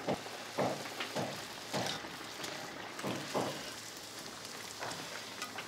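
Bhatura deep-frying in hot oil in a steel kadai: a steady crackling hiss, with repeated soft splashes as a slotted spoon works the oil around it.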